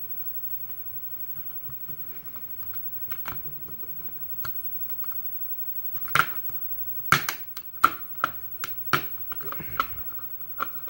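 Small metal tools clicking and tapping against a euro cylinder lock as its retaining clip is worked off: faint light ticks at first, then a run of sharp, irregular metallic clicks from about six seconds in.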